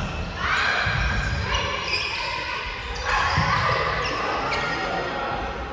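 Indoor volleyball play in a gym hall: ball hits and thumps, with players' shouts starting twice, about half a second in and about three seconds in, echoing in the hall.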